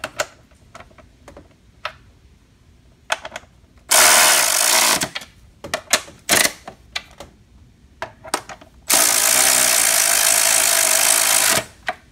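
Red cordless electric ratchet running in two bursts, one about a second long and a longer one of about two and a half seconds, with sharp clicks and knocks of the tool and fasteners in between.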